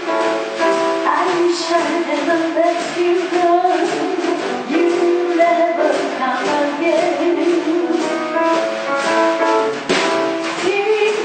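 A song: a woman singing over instrumental backing.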